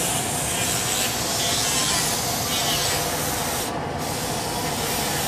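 Hand-held grinder's abrasive disc grinding a steel body panel, a steady unbroken grinding noise with a faint steady tone under it. It is cleaning the old finish and the plasma-cut edge off a fabricated repair piece.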